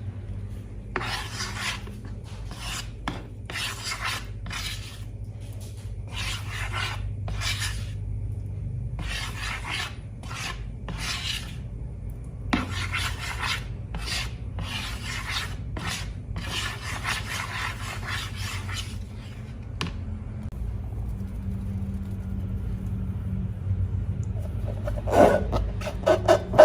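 Repeated scratchy rubbing or scraping strokes, each under a second, in a string of about a dozen, over a steady low hum. A burst of sharper crackling clicks comes near the end.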